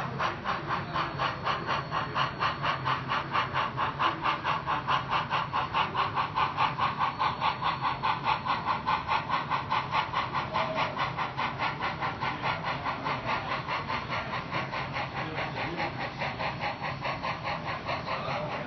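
HO scale model steam locomotive's onboard sound playing a steady steam exhaust chuff, about four chuffs a second, as the engine pulls its train, with a faint hum underneath.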